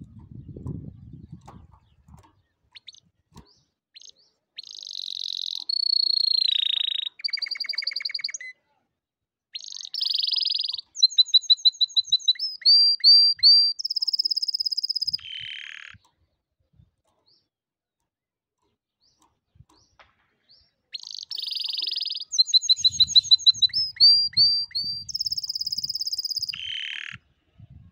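Domestic canary singing two long song bouts, a few seconds apart, each a string of fast high trills and rolls of rapidly repeated notes that shift in pitch from phrase to phrase, with some held whistles.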